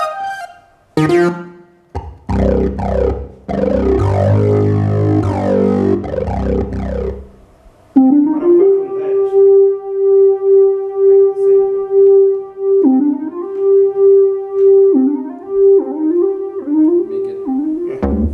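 Casio XW-G1 synthesizer being played: a quick falling run of notes, then thick chords over deep bass for several seconds. From about eight seconds in, a single-note lead sound is held and slides up into its notes with pitch bends.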